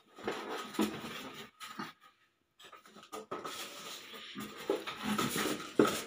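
Cardboard box flaps being pulled open and handled, scraping and rustling in irregular bursts, with a brief gap about two seconds in.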